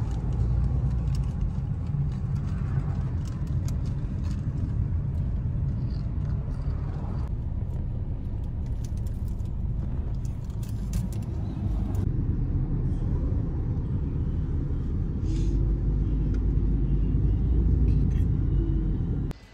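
Car in motion on a highway, heard from inside the cabin: a steady low rumble of road and engine noise that cuts off suddenly near the end.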